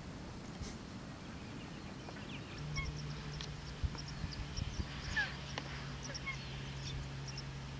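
Nene (Hawaiian geese) giving scattered short calls among small birds chirping. A steady low hum starts about two and a half seconds in and runs under them.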